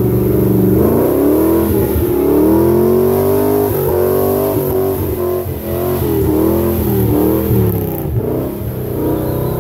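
Engine of a Toyota FJ40-based rock-crawling buggy revving up and down in repeated surges as the buggy climbs over rocks.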